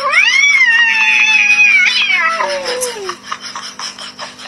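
A domestic cat's long, drawn-out yowl: it rises in pitch at once, holds for about a second and a half, then slides down and fades out about three seconds in.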